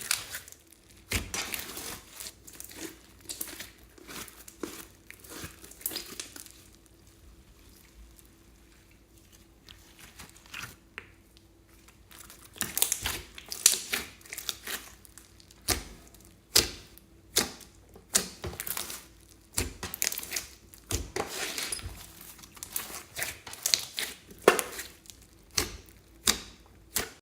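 Glossy slime being pressed, stretched and folded by hand, giving irregular crackling clicks and pops, with a quieter stretch in the middle.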